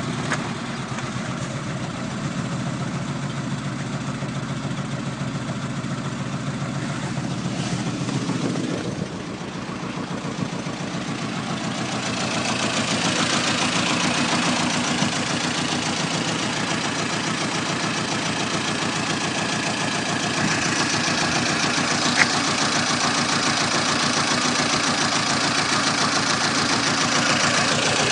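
VAZ-2109 four-cylinder petrol engine running with a steady rhythmic knock and vibration, getting louder and brighter about twelve seconds in. The owner cannot tell why it knocks and vibrates.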